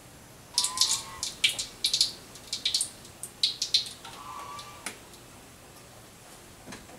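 A plastic bottle of cooking oil being handled and its cap twisted open: a rapid run of sharp crackles and clicks lasting about four seconds, with two short squeaks.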